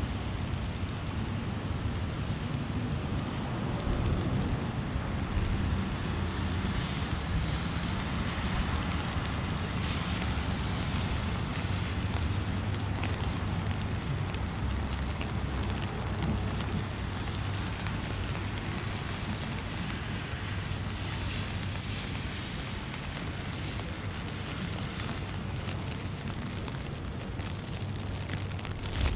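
Steady city street ambience: a constant low traffic rumble under an even hiss.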